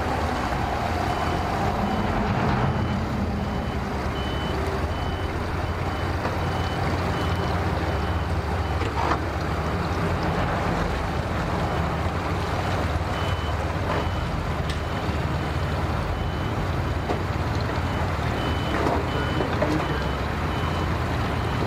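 Yamaha 115 outboard motor idling steadily. A vehicle's reversing alarm beeps evenly in the background, pausing for a few seconds midway.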